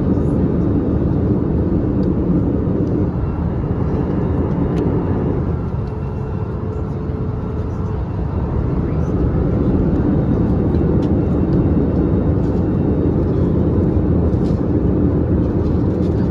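Steady engine and airflow rush heard inside the cabin of an Airbus A321-200 airliner, easing slightly for a couple of seconds midway.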